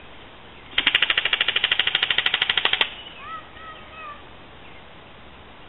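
Airsoft rifle firing one full-auto burst of about two seconds, roughly ten shots a second, that stops abruptly.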